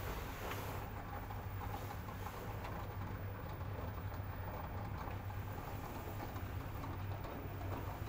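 LG Direct Drive washer-dryer running a wash cycle: a steady low hum from the motor and turning drum.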